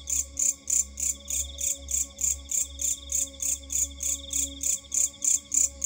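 A chorus of night insects chirping in rapid even pulses, about four a second, over a steadier high trill. A faint steady hum sits beneath them.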